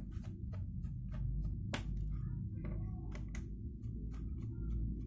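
Opening the memory-compartment cover on the underside of a Toshiba Satellite L745 laptop: a run of small, sharp, irregular clicks and ticks from the screwdriver, screws and plastic cover, over a steady low hum.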